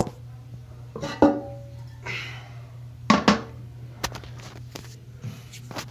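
Porcelain toilet tank lid of a 2004 Crane Galaxy being lifted and set down: a series of hard clunks and clinks of china on china. One knock about a second in rings briefly, and a short scrape follows about two seconds in.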